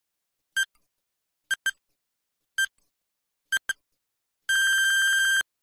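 Electronic quiz countdown-timer beeps: short pips about once a second, some in quick pairs, then a long beep of about a second near the end that cuts off suddenly as the time runs out.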